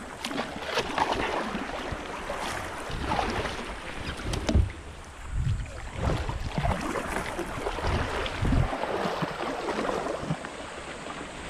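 Water splashing and sloshing around a 10 ft fishing kayak on the sea, with wind gusting on the microphone and a few sharp knocks, the loudest about four and a half seconds in.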